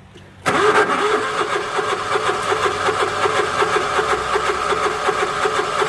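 Zero-turn mower's engine being cranked by its starter: rapid, even chugging of about five pulses a second that starts abruptly half a second in and does not catch into a run. It is slow to start in the cold.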